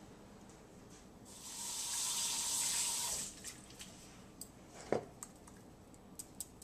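Water running steadily for about two seconds, a hiss like a tap, stopping about three seconds in. A few light clicks and a soft knock follow.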